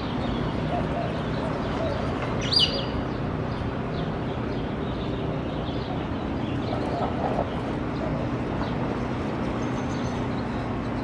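Outdoor ambience: a steady low hum runs throughout, with a single sharp downward bird chirp about two and a half seconds in and a few faint lower calls.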